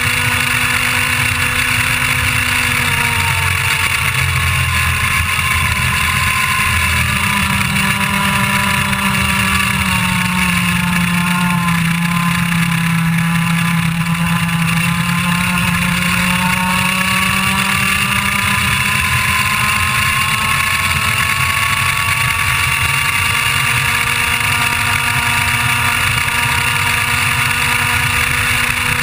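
IAME Leopard 125cc two-stroke kart engine heard onboard, high-revving. Its note drops from about three seconds in as the kart slows for a corner, bottoms out around twelve to fourteen seconds, then rises steadily back to near top revs as the kart accelerates down the straight.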